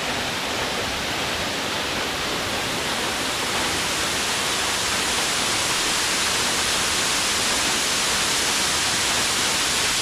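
Single-drop waterfall pouring steadily down a rock face: an even, unbroken rush of falling water.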